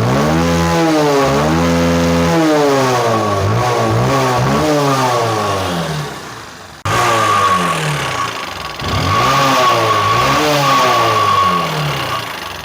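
Motorcycle engine revved up and down repeatedly with the throttle, with a steady high whine and a 'tak tak tak' knock. The mechanic first suspects piston slap or tappet noise and then largely traces the knock to play in the rocker gear. The revving cuts off and starts again about seven seconds in.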